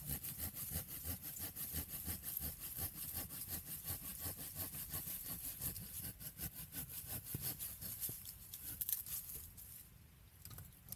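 Hand saw cutting through a fallen branch for firewood: quick, regular back-and-forth strokes that stop near the end.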